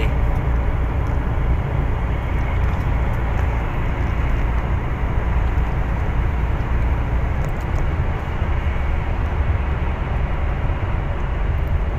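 Steady low rumble of a truck's engine and tyres on the road, heard from inside the cab while driving at speed.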